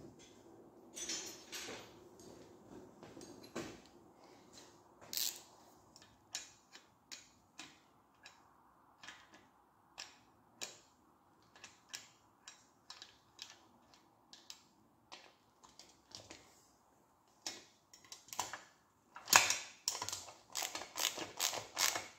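Sharp mechanical clicks and taps from hand work fitting a motorcycle licence-plate holder, about one a second, then a quicker, louder run of clicks near the end.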